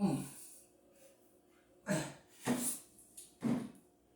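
A man's short, hard breaths or huffs, about four of them spaced unevenly, from straining at an awkward task.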